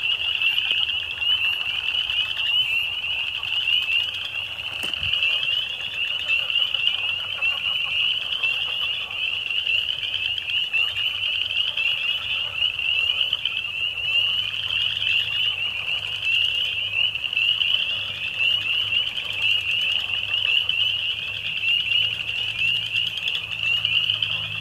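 A dense chorus of spring peepers: many high peeps, each rising slightly in pitch, overlapping into one continuous shrill ring.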